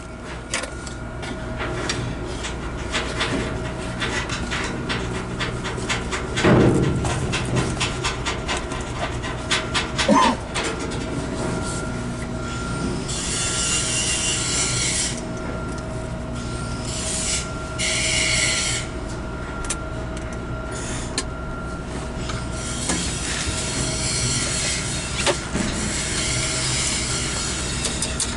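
Scraping and knocking of gear being worked into a cramped spot, then a stick-welding arc crackling in short runs that start and stop abruptly, over a steady industrial hum.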